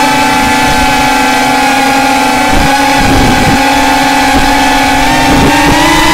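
FPV racing drone's electric motors and propellers whining steadily in flight, recorded by the onboard camera. The pitch dips briefly a few times as the throttle eases, then steps up near the end as the drone climbs.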